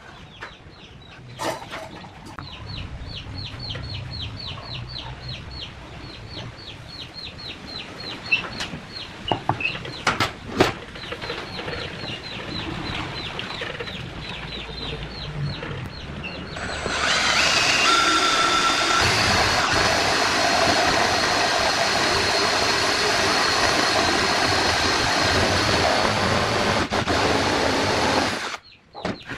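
A series of short high chirps repeating about three to four times a second, then a homemade power saw's motor starts abruptly and runs loud and steady for about ten seconds before cutting off suddenly near the end.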